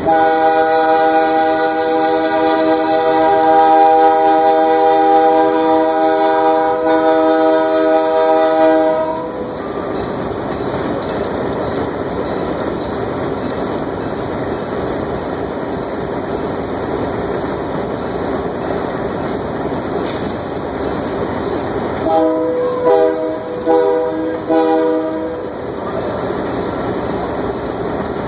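Diesel locomotive air horn sounding one long chord for about nine seconds, then several short blasts a little over twenty seconds in. Between the blasts the locomotive runs with a steady rolling rumble.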